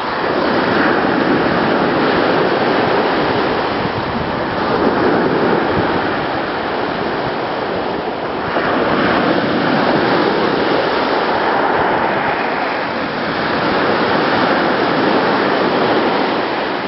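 Sea waves washing in as a steady rush that swells and eases every few seconds.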